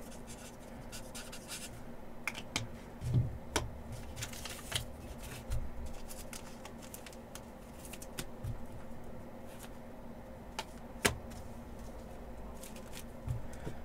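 Scattered light clicks, taps and scrapes of hands handling small items on a desk, with a sharp click about eleven seconds in, over a faint steady hum.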